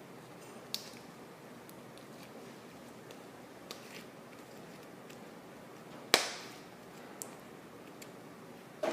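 Quiet room with a few faint clicks and taps from objects being handled, a sharp knock about six seconds in, and a smaller knock near the end.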